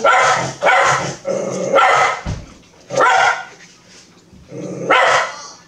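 A dog barking several times, in short separate barks at uneven intervals.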